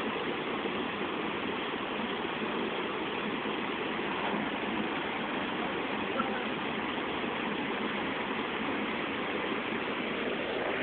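Steady rushing of flowing river water, with a small tap about six seconds in.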